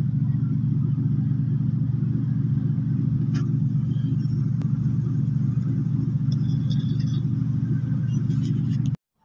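Engine running steadily with a low, even drone, cut off abruptly near the end.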